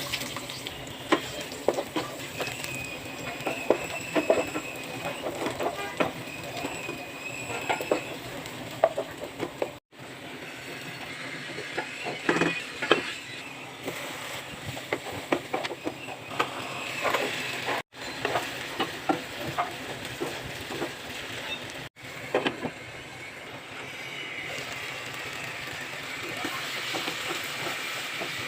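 Food sizzling in a cooking pan while a spatula stirs, with scattered clicks and knocks of the utensil against the pan over a steady frying hiss. The sound drops out briefly three times.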